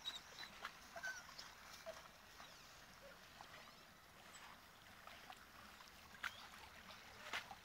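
Faint water sounds of a dog paddling as it swims in a creek, with a few short, faint whines from a dog.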